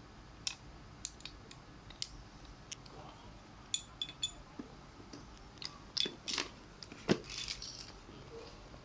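Small screws being tightened with a screwdriver into a wheelchair joystick bracket: scattered light clicks and a few short metallic clinks, busier near the end with a sharper knock about seven seconds in.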